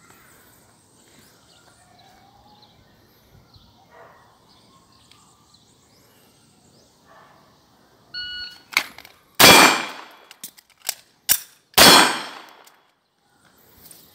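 An electronic shot timer beeps about eight seconds in to start the drill. Then a pistol fires two loud shots about two and a half seconds apart, with sharp metallic clicks of the gun being worked between them.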